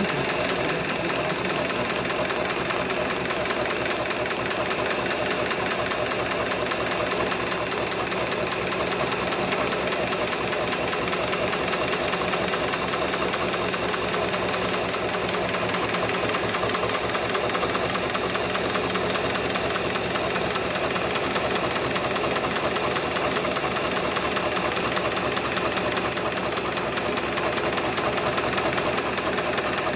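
HIGHTEX 7273PLK automatic programmable pattern sewing machine stitching heavy webbing belt, its needle running in a fast, steady stitching clatter with a continuous high hiss above it.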